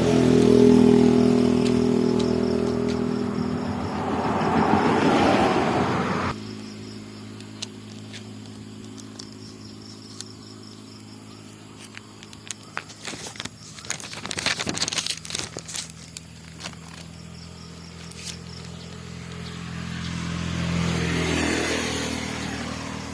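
A motor vehicle's engine running close by, cut off suddenly about six seconds in. Later comes a run of sharp clicks and scraping clatter, then another vehicle passes near the end.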